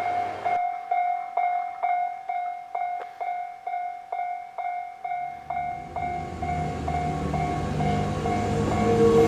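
A Japanese railway level-crossing alarm rings its electronic bell about twice a second. From about halfway in, the low rumble of an approaching freight train builds up under it and keeps getting louder.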